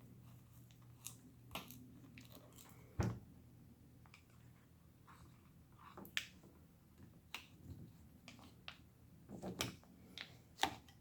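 Plastic pry tool clicking and scraping against a MacBook's adhesive-stuck battery cells as they are worked loose, in faint scattered ticks and scrapes, with one sharper knock about three seconds in.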